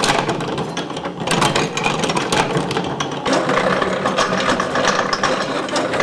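Antique hand-operated washing machines' cast-iron gears and wooden tubs clattering and clicking in a fast, uneven rattle as they are worked. About three seconds in the rattle changes, as a foot-treadle wooden barrel washer takes over from a crank-driven gear-and-flywheel washer.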